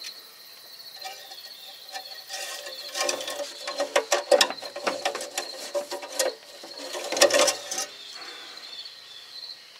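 Irregular metallic clicking and rattling of tools or parts being handled, busiest in the middle, with crickets chirping steadily behind.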